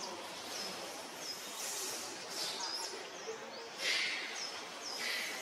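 Short, high chirps repeating about once a second, typical of a bird calling, over a steady outdoor background hiss. Two brief hissy bursts come about four and five seconds in, the first the loudest sound.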